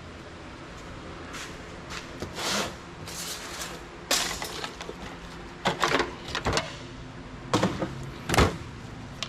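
Computer parts being handled and pulled apart by hand for scrap: irregular clicks, knocks and short scrapes of metal and plastic, with a cluster of clicks around the middle and a sharper knock near the end.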